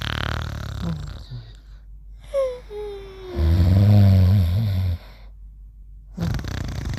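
Cartoon snoring: a loud, deep, rattling snore a little past the middle, with breathy exhales before and after it and a short falling whistle just before it.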